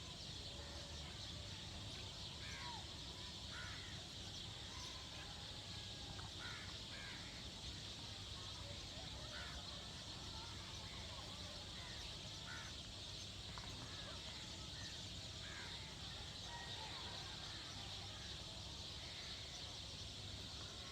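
Birds calling now and then, short calls every second or two, over a steady high hiss.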